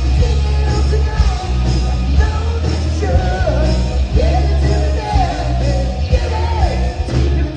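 Hard rock band playing live: a lead singer singing over electric guitars, bass and drums, loud and continuous.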